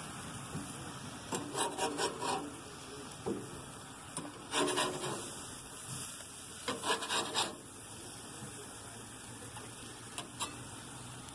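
Metal spatula scraping across a grill grate while flipping hamburger patties: three bunches of short scrapes, about a second and a half, four and a half, and seven seconds in, over a steady background hiss.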